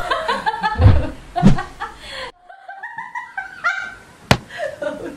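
Two women laughing and giggling, with a couple of low thumps in the first second and a half and a single sharp click about four seconds in. The sound cuts off abruptly a little past two seconds in, then the laughter picks up again.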